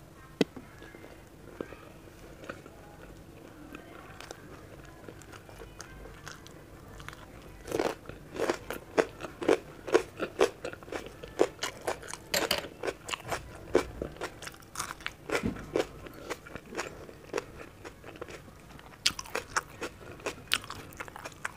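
A person chewing a mouthful of chapati with capsicum-and-potato sabzi. It is fairly quiet at first, then from about eight seconds in comes a run of sharp chewing clicks, two or three a second, and a shorter run near the end.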